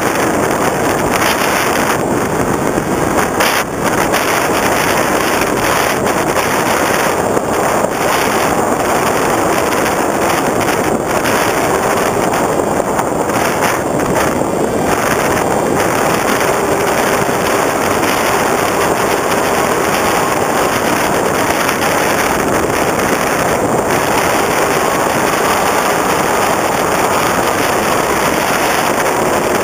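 Steady rush of wind buffeting the onboard GoPro microphone on a flying FPV Raptor RC plane, with the faint hum of its electric motor and propeller underneath.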